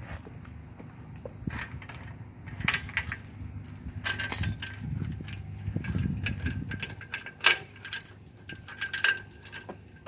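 Utility trailer hitch hardware being handled: scattered metallic clicks as the coupler latch is worked on the hitch ball, with the safety chain clinking.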